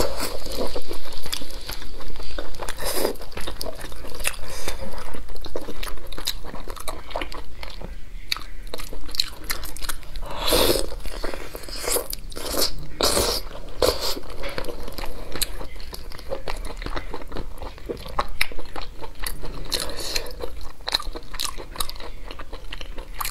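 A person biting, tearing and chewing glazed chicken on the bone, heard up close: a continuous run of irregular wet mouth sounds and sharp crisp clicks, with a few louder bites scattered through the middle.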